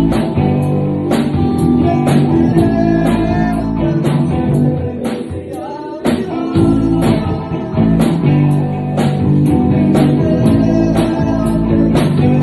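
A live rock band playing: distorted electric guitar, electric bass and a drum kit keep a steady beat, with a man singing over it. The band drops back for a moment about halfway through, then comes in again with a drum hit.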